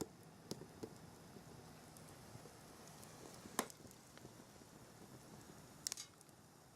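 A few faint, sharp clicks and snaps over a low steady hiss, the loudest about three and a half seconds in.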